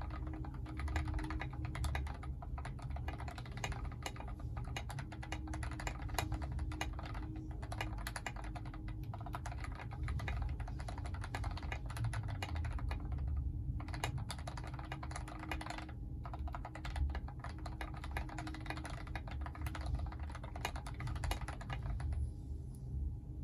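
Continuous typing on a mechanical keyboard with lubed Gateron Ink Red linear switches, an aluminium plate and SA-profile PBT keycaps: a fast, dense run of keystrokes that stops near the end.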